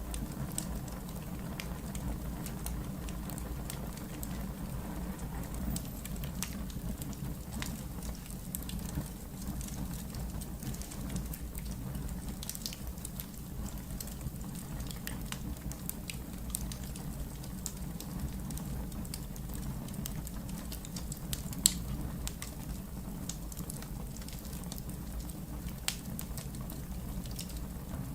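Wood fire in a fireplace crackling: scattered small snaps over a steady low noise, with one sharper pop about three-quarters of the way through.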